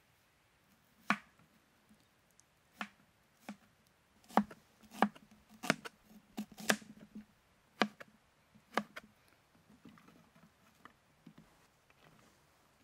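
Knife chopping vegetables: about ten sharp, irregularly spaced chops, closest together in the middle, trailing off into lighter taps near the end.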